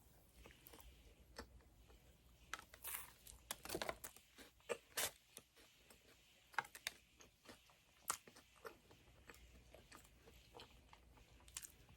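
Close-miked eating sounds of someone biting into and chewing doughnuts: soft chewing with scattered short, crunchy clicks, busiest a few seconds in.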